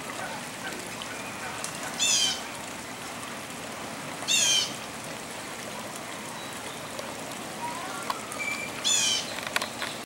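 A bird calls three times, each a short, high-pitched warbling trill that falls in pitch, about two, four and a half and nine seconds in, over a steady background hiss.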